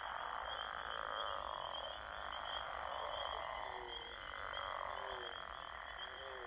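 Quiet night ambience: short croaking calls, about one a second from halfway through, over a steady high trill and a soft hiss.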